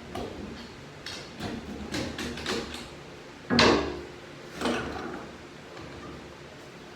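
Metal transmission parts and a screwdriver being worked on a bench: a run of short clinks and scrapes, then a loud knock about three and a half seconds in and a smaller one a second later.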